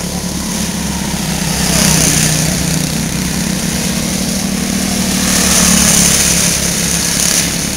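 Quarter midget race cars' small single-cylinder engines running as they lap the oval, growing louder twice, about two seconds in and again around six seconds, as a car passes close.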